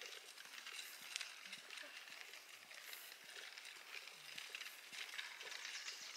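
Faint footsteps on a forest trail over quiet outdoor ambience, heard as scattered irregular taps above a steady high-pitched hiss.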